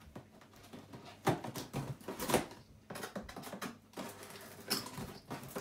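Cardboard box being opened by hand: its flaps pulled and handled, giving a series of sharp knocks, clicks and scrapes.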